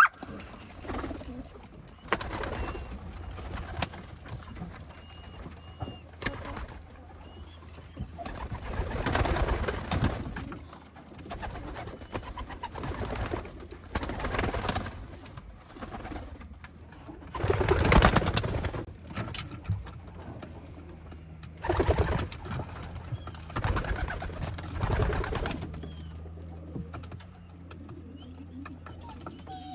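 Pigeons cooing in a loft, with several louder rustling bursts, the loudest about two-thirds of the way through.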